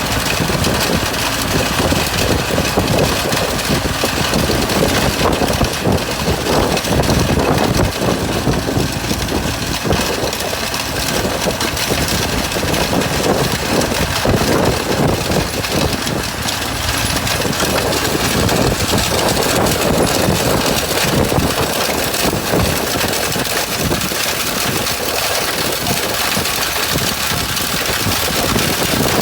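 Stone-crushing machine running, a loud, continuous mechanical din with dense rattling throughout.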